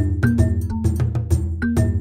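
Background music: a light, even-tempo instrumental with short struck or plucked notes over a steady bass and drum beat.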